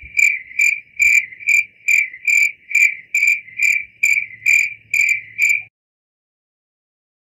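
Cricket chirping in an even rhythm, about two high-pitched chirps a second, which stops abruptly a little over five seconds in.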